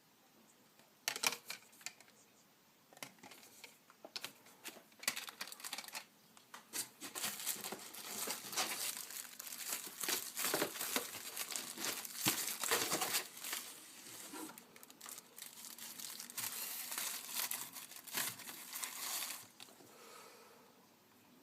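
Packaging being unwrapped by hand: crinkling and tearing with many sharp crackles. It starts about a second in and stops near the end.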